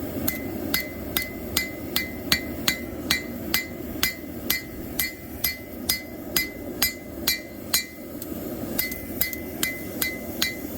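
Forging hammer striking hot knife steel on an anvil in a steady rhythm of light blows, a bit over two a second, each with a short metallic ring, as the blade shape is refined. The blows pause briefly about eight seconds in, then resume, over a steady low rushing noise.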